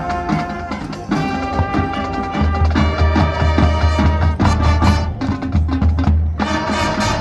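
High school marching band playing: sustained brass and wind chords over deep low notes, with drums and percussion striking throughout.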